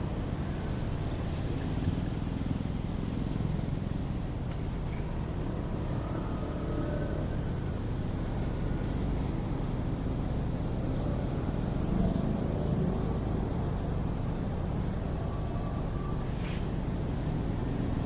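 City ambience: a steady low rumble of traffic, with faint, distant voices now and then and a short high squeak near the end.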